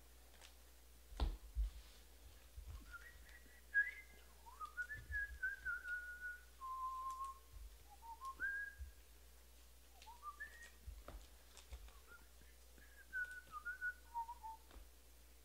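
A person whistling a meandering tune in a few short phrases, with held notes and slides between them. A few sharp knocks and clicks come in between, the loudest about a second in and about four seconds in.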